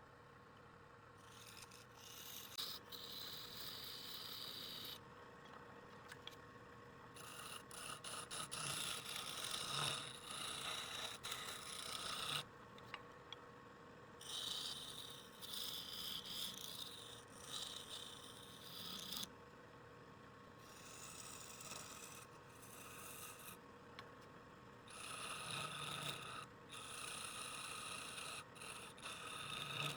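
Wood lathe running with a steady hum while a tool is worked against the spinning wood in repeated passes of a few seconds each, a hissing scrape that stops and starts.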